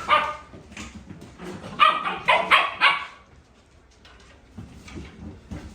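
A dog barking: one bark right at the start, then a quick run of about four barks about two seconds in.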